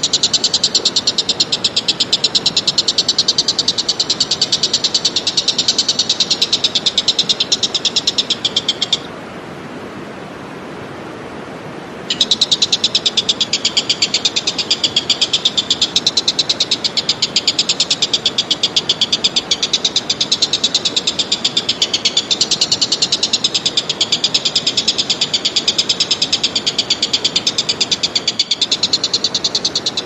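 A high-pitched, rapidly pulsing animal chorus, steady and unbroken, that cuts off suddenly about nine seconds in and starts again about three seconds later.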